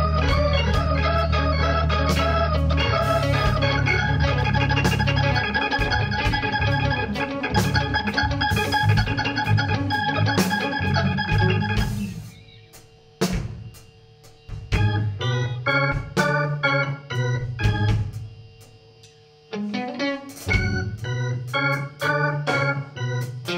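Live band music: a keyboard with an organ sound holds dense chords over drums. About halfway through the full sound drops out, leaving short, spaced organ stabs and drum hits with a brief pause near the end.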